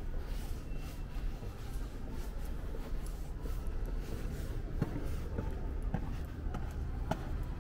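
Footsteps walking through a quiet indoor hall, a few soft steps and clicks in the second half, over a steady low rumble of building ventilation.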